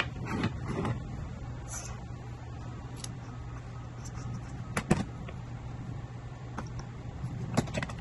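Hand tools, among them a self-adjusting wire stripper, being picked up and handled on a wooden table: a few sharp clicks and clacks, the loudest about five seconds in, over a steady low hum.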